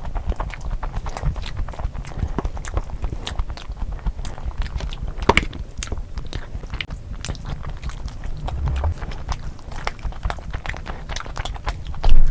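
A person chewing and biting food close to the microphone: a dense, irregular run of wet smacks and small clicks. A loud low thump comes near the end.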